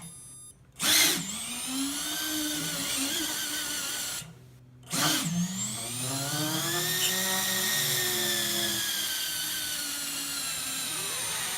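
Brushless motors of a Lizard 95 micro quadcopter spinning up twice: a high whine whose pitch rises and falls with the throttle, each run starting with a short burst and a brief stop between them. The front-left motor is not spinning, a fault the owner puts down to either the motor or its ESC.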